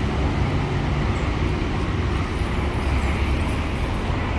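Steady low rumble with an even hiss of background noise, with no distinct strikes or rhythm.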